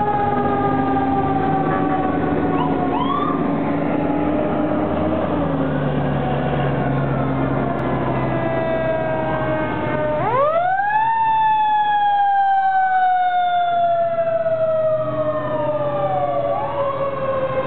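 Fire engine sirens wailing, several at once, their pitches sliding slowly down. About ten seconds in, one siren winds up sharply and then slowly winds down, with a low rumble from the passing fire trucks underneath in the first half.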